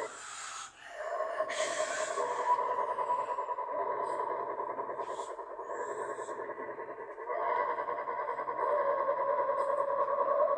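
A voice heavily altered by audio effects, holding long, fast-wavering tones, with two short hissy bursts in the first couple of seconds.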